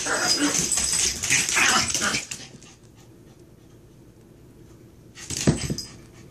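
Two small Chihuahuas play-fighting: a couple of seconds of loud, dense scuffling dog noise, then a quiet pause, then a brief loud burst as they go at each other again about five seconds in.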